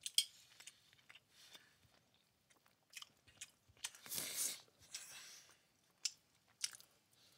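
Close-miked chewing and mouth sounds of a person eating soft leftover food, with scattered small clicks and a louder noisy burst about four seconds in.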